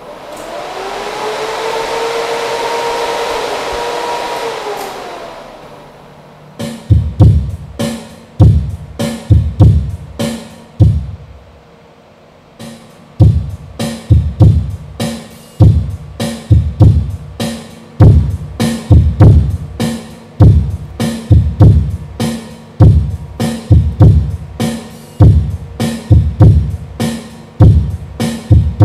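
Music with a heavy bass-drum beat. It opens with a swelling synth sweep that rises, holds and fades over the first five seconds; the beat comes in about seven seconds in, stops for a moment, then carries on steadily.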